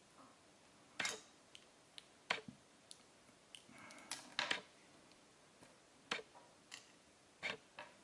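Small sharp metallic clicks and taps from a pick working pins and springs out of a solid brass lock cylinder, about a dozen scattered through. About four seconds in there is a short scrape followed by a quick cluster of clicks.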